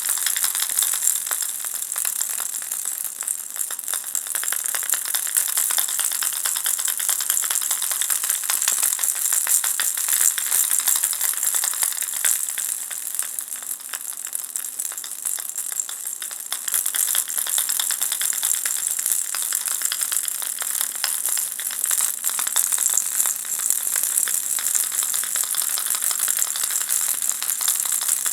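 Ball-shaped baby rattle shaken continuously, small beads pattering inside it in a dense, fast stream of tiny clicks, easing slightly for a moment around the middle.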